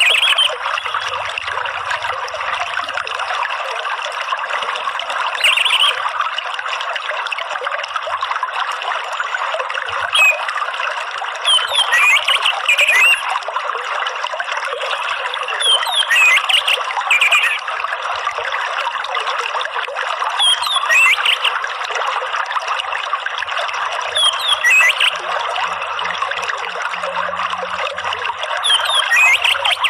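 Water trickling steadily, with short clusters of high chirping bird calls every few seconds, likely an orange-headed thrush. It is a cage-bird therapy track of running water and thrush chirps, played to coax a thrush that has gone quiet into singing.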